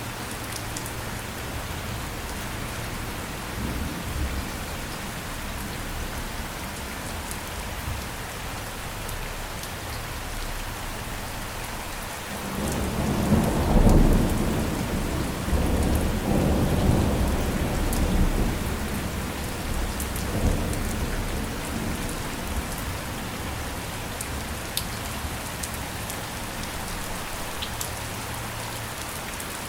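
Steady rain falling, with a low roll of thunder that builds a little before halfway through, rumbles in several swells for about eight seconds, and fades.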